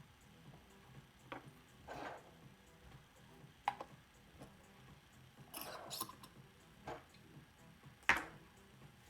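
A few scattered light clicks and taps, the sharpest one about eight seconds in.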